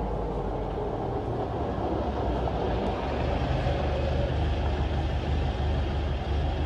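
Pickup truck engines running as the vehicles drive slowly up, a steady low rumble.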